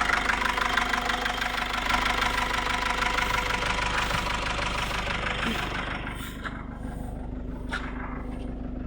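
Toyota Grandia's 2KD four-cylinder diesel engine idling steadily, running again after a crank-no-start that followed a snapped timing belt and top overhaul. It grows quieter about six seconds in, and there is a single click near the end.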